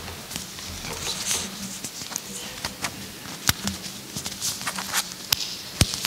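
Clip-on lapel microphone being handled and re-clipped on a shirt front: cloth rustling against the mic with a run of sharp clicks and knocks. The two loudest knocks come a little past halfway and near the end.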